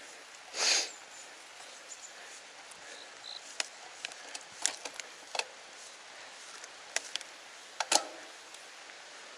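A cyclist's hard exhale, a short loud rush of breath, about half a second in. It is followed by scattered, irregular clicks and ticks from the bike and road, with one sharp double click near the end.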